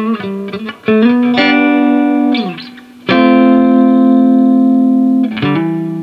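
Electric guitar with a homemade 4.3K scatter-wound ceramic-magnet pickup, played through a small tube amp. Quick picked notes, then a held note that slides down in pitch about two seconds in, a long sustained note from about three seconds, and more picked notes near the end.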